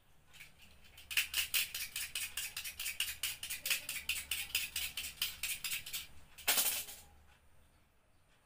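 Quick, even scraping strokes of a blade on wire, about five a second, with one louder scrape near the end. This is the scraping off of the enamel insulation from the copper winding wire so it can be joined and soldered.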